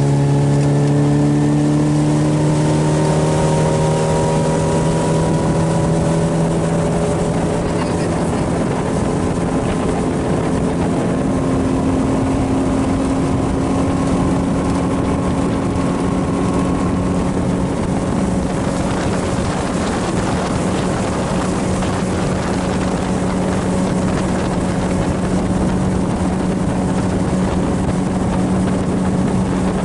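Boat motor running steadily as the boat cruises across the lake, its pitch easing down a little in the first few seconds and then holding, over a steady rush of wind and water.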